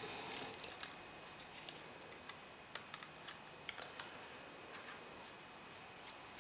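Faint, irregular small clicks and taps of metal tools and tiny screws handled against the iPhone 4's case during disassembly, a few sharper clicks standing out in the middle and near the end.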